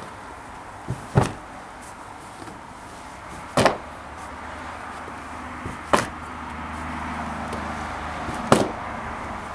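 Heavy wool Persian rugs being flipped over onto a stack, each one landing flat on the pile with a sudden thud, four times about two and a half seconds apart.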